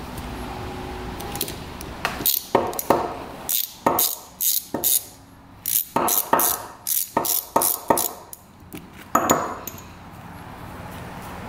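Sharp, irregular metallic clicks and clacks of hand tools and small engine parts being handled during two-stroke power valve disassembly, some in quick clusters, from about two seconds in until just after nine seconds.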